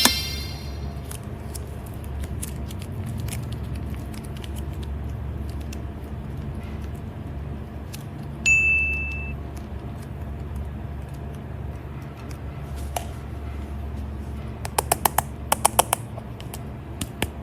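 Edited sound effects over a steady low hum: a single bright ding about halfway through, then a quick run of metallic clinks near the end.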